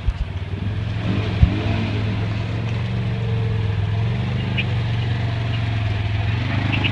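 Polaris Ranger XP 900 side-by-side's twin-cylinder engine running steadily as it drives through mud and shallow water, its pitch rising and falling briefly twice. A sharp knock sounds about one and a half seconds in.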